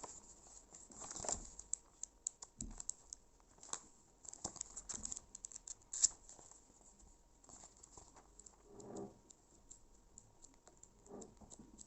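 Handling and leafing through a paper guide book: scattered light ticks and taps of pages and cover, with a couple of soft rustles later on.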